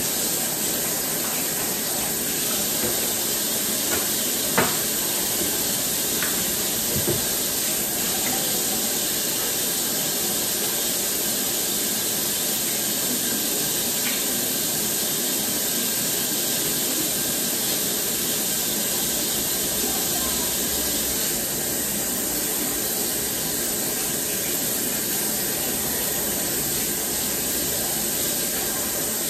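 Kitchen tap turned on and running steadily into the sink, with a couple of light knocks about four and seven seconds in.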